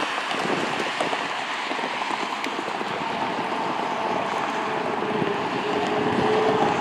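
Steady rushing noise of an airliner's jet engines on the ground, with a faint whine and a car passing close by near the end.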